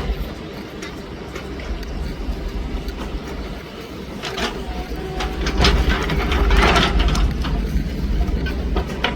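Komatsu PC200 hydraulic excavator working: its diesel engine runs with a steady low rumble, with scattered knocks and clatter, loudest in a noisy burst about six to seven seconds in.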